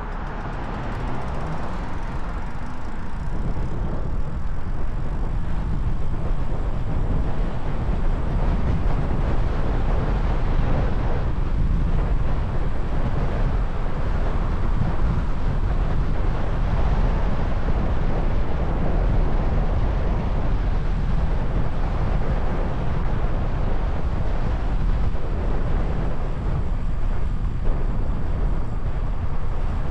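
Steady low wind rumble on an Insta360 X4's built-in microphone, fitted with a furry wind muff, while riding an e-bike at speed, mixed with road and tyre noise. It grows louder over the first few seconds, then holds steady.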